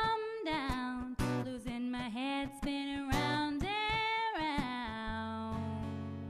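Woman singing long held notes with slides between them over a strummed acoustic guitar. About five seconds in, the singing stops and a held chord with low bass notes rings on.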